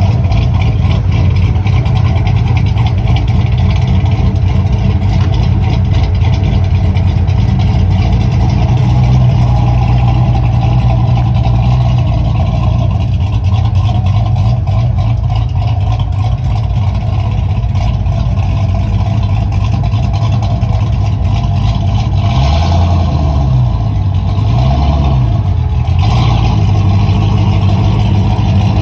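Chevy's engine running loud through its Blueprint exhaust with a steady low rumble; near the end the pitch dips and rises twice as it is revved.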